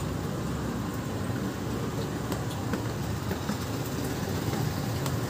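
Steady low engine rumble of a motor vehicle, with a few faint light clicks now and then.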